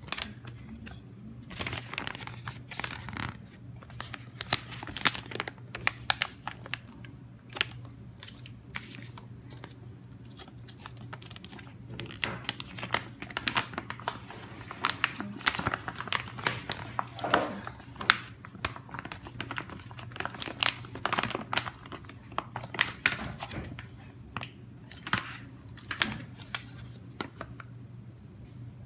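Printed plastic film packaging bags crinkling and crackling as they are handled, flexed and opened, in many sharp irregular crackles. A steady low hum runs underneath.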